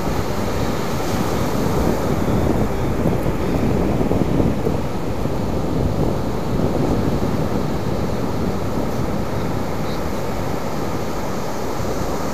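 Ocean surf washing up on a sandy beach, mixed with wind buffeting the microphone: a steady rushing noise.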